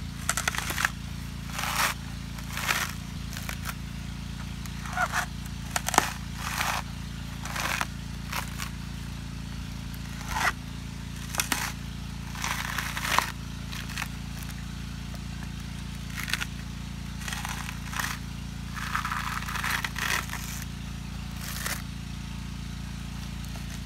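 Green coconut husk being levered and torn apart on a fixed iron blade: about twenty irregular scraping, crackling tears of the fibrous husk, each under a second.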